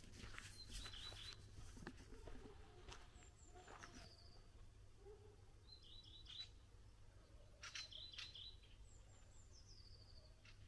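Small songbirds singing faintly: short high chirping phrases, some a quick run of notes, others a falling whistle, repeating every few seconds.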